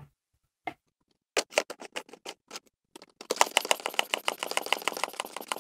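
Plastic pump head of a hand pressure sprayer being fitted and screwed onto its tank: a few separate clicks, then from about three seconds in a fast, continuous run of plastic clicking.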